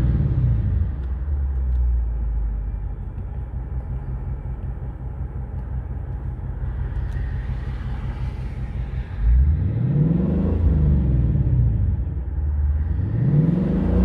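2020 Ford Mustang GT's 5.0-litre V8 with active exhaust, free-revving in park. It falls back from a rev to idle at the start and idles steadily for several seconds. About nine seconds in it is blipped up and let fall again, then near the end it revs up to around 3,500 rpm. Heard from inside the cabin.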